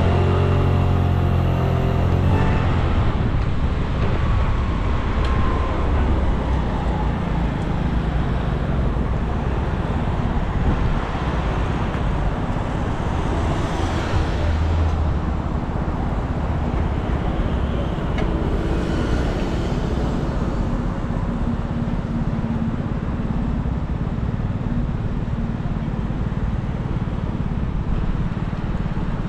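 City road traffic: cars and other motor vehicles passing in a steady wash of traffic noise. A nearby vehicle's engine hum stands out in the first two or three seconds, and other vehicles swell past about halfway through and again a little later.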